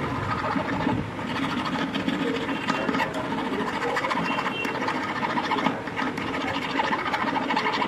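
Small hand file rasping back and forth across the edge of a silver ring in repeated scratchy strokes.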